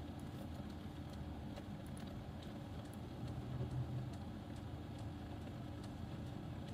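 Faint, scattered light clicks of knitting needles as stitches are worked, over a steady low background hum.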